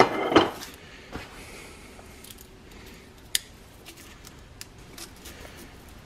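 Cardboard template being cut out by hand: a few faint, scattered snips and clicks, the sharpest about three seconds in.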